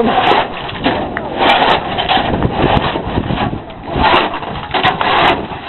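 Snow crunching and scraping in a run of irregular rough strokes, about one every half second to a second.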